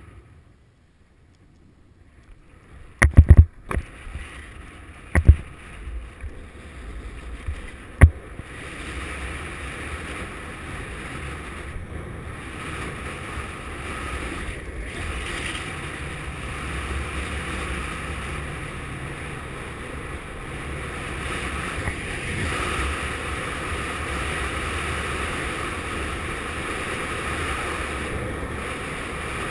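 Longboard wheels rolling on asphalt, mixed with head-wind noise on the microphone: a steady rushing that grows louder through the run. Several sharp knocks sound in the first eight seconds, before the roll settles in.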